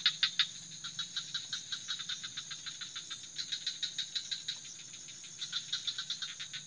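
Night chorus of insects: a steady high-pitched trill, with bouts of a louder, rapid pulsing call, about eight pulses a second, every couple of seconds, over a faint low drone.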